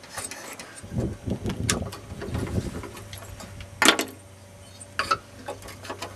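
Hands and a screwdriver working on a fire-damaged Briggs & Stratton 3.5 hp lawnmower engine. Low scraping and handling sounds come first, then a few sharp metal clicks, the loudest about four seconds in, over a low steady hum.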